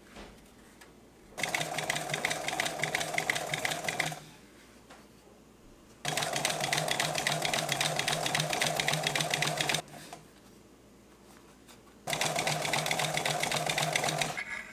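Post-bed industrial sewing machine stitching a seam with reinforcing tape fed under the foot. It runs at a rapid, even stitch in three runs of about three to four seconds each, stopping in between.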